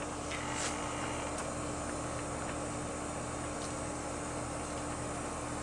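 Steady background hum with a faint low tone, like an air conditioner or fan running, and a few faint short clicks.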